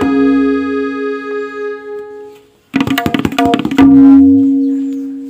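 Tabla and harmonium: a held harmonium chord with tabla strokes fades out, then after a short pause a quick closing flourish of tabla strokes ends on a loud ringing note that slowly dies away.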